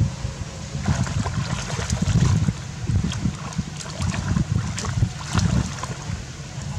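A monkey swimming through shallow floodwater, splashing in quick irregular strokes that ease off near the end, over a heavy rumble of wind on the microphone.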